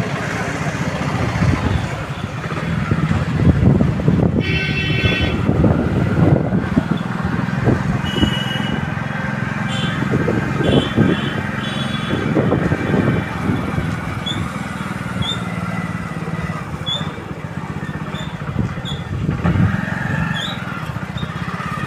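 Motor vehicle engine running steadily, with a brief high-pitched tone about four seconds in and a series of short high chirps from about eight seconds on.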